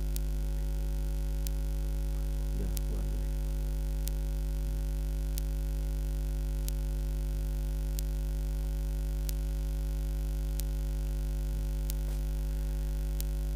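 Steady electrical mains hum with its overtones, with faint ticks about every second and a bit.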